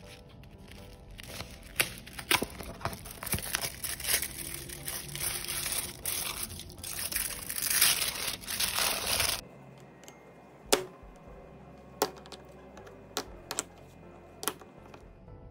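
The paper sleeve and foil wrapper of a chocolate bar are torn open and crinkled for about nine seconds. Then a chef's knife chops down through the dark chocolate bar onto a cutting board: five sharp cracks over the last few seconds.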